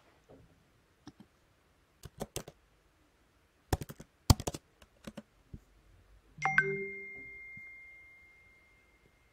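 Computer keyboard keys clicking as a short word is typed, in a few quick groups of taps. About six and a half seconds in, a sudden bright ding rings out and fades away over about three seconds.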